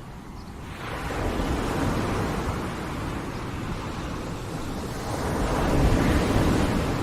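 Sea waves washing onto the shore: a rushing surf noise that swells about a second in, eases, then swells again to its loudest near the end.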